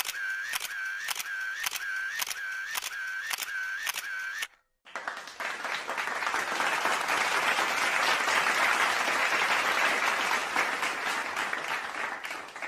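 A sound effect of sharp repeated clicks, each with a short dipping tone, about two a second, stops after about four and a half seconds. After a brief gap, a crowd's applause sound effect follows: dense clapping that rises and then fades near the end.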